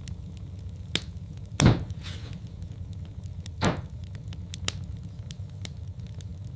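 Wood fire crackling in a fireplace: scattered sharp crackles over a steady low rumble, with two louder pops about two seconds apart.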